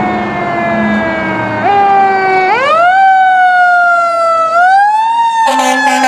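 Fire engine siren wailing: its pitch sinks slowly, then winds up and coasts back down twice. A lower steady tone joins near the end.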